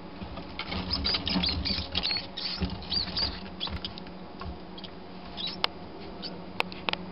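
A small live mouse squeaking in distress as a bearded dragon seizes it in its jaws: a quick run of short, high squeaks for about three seconds, then a few scattered squeaks. Two sharp clicks come near the end.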